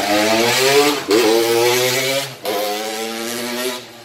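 Motocross bike engine revving hard as the bike accelerates, its pitch rising in three pulls with brief breaks about one and two and a half seconds in, then dropping away near the end as the bike moves off.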